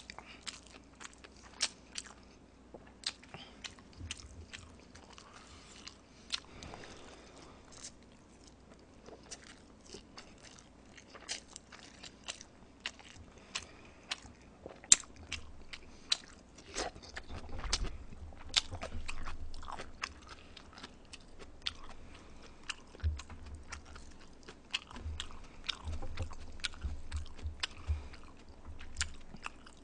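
Close-miked chewing and eating of soft, swollen Jjapaghetti black-bean instant noodles, with many sharp wet clicks and smacks throughout and a longer, louder stretch of eating noise about two-thirds of the way through.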